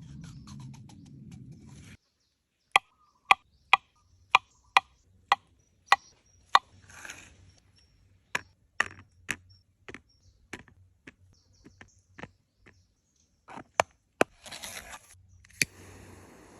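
A series of sharp knocks, evenly spaced at about two a second for several seconds, then fainter and irregular, with two louder strikes near the end.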